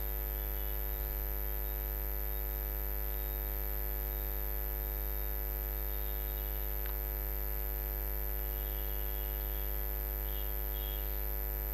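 Steady electrical mains hum with many even overtones and a thin high whine, picked up by the recording's microphone. A faint click about seven seconds in.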